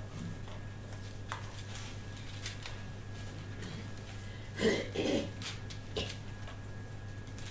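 Bible pages being leafed through: faint rustles and ticks over a steady low hum, with a louder brief double rustle about four and a half seconds in.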